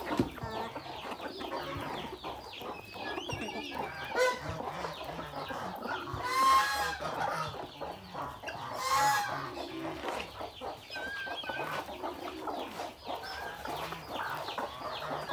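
A flock of chickens clucking as they feed, with many quick beak taps on feed in a rubber tire trough. Two louder calls stand out, about six and nine seconds in.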